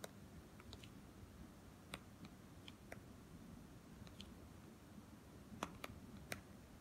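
Faint, irregular taps of a stylus on a tablet's glass screen while handwriting, over near-silent room tone, with a couple of sharper taps near the end.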